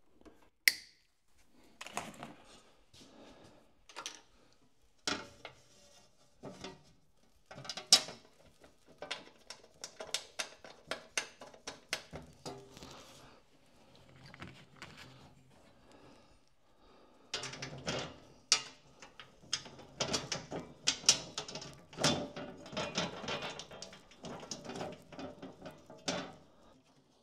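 Hands at work on wiring and a sheet-metal cover panel: scattered clicks, taps and rattles, with a sharp snap about a second in, and a busier stretch of knocks and clatter as the panel is handled and fitted back in place near the end.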